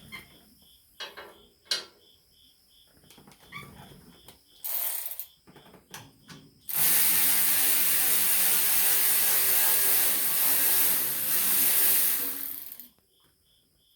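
A few light metal clicks and knocks of tools being handled. Then, about seven seconds in, a handheld power tool runs steadily with a loud hiss for about six seconds before stopping.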